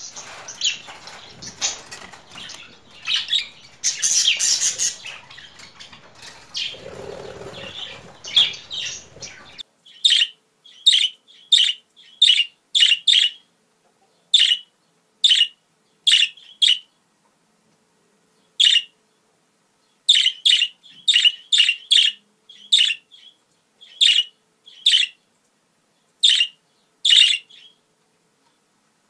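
Budgerigar calls: busy warbling chatter over a noisy background for about the first ten seconds, then a run of short, sharp chirps, roughly one or two a second, with silent gaps between them.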